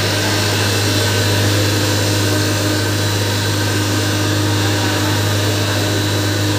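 Sugar pulverizer grinding mill running steadily, a loud continuous machine noise over a strong low steady hum.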